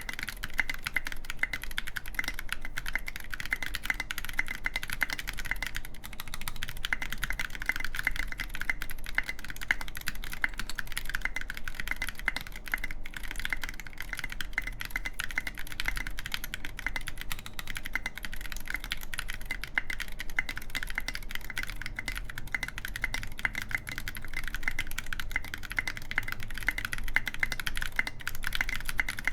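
Continuous steady typing on a gok 7V mechanical keyboard with lubed Zealios v2 tactile switches on a full aluminium plate, fitted with SA-profile keycaps: a dense, unbroken stream of key clacks.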